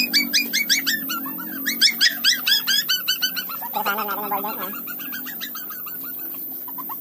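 A bird calling a rapid series of sharp, high, downward-sweeping chirps, about four to five a second, for the first three seconds or so, followed about four seconds in by a brief, lower, wavering call.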